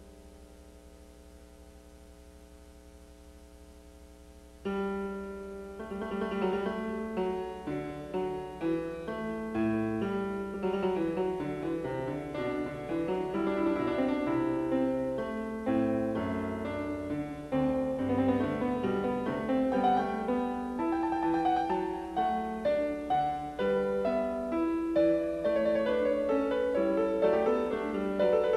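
Instrumental background music with a piano-like keyboard sound. A soft held chord fades at first, then about five seconds in a busier stream of notes comes in and carries on.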